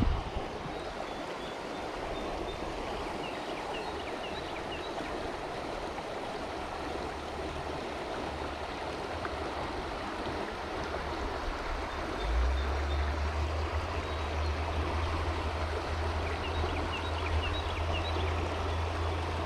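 Stream water flowing and rippling in a steady rush. A few faint, short high chirps come twice, and a low rumble sets in about twelve seconds in.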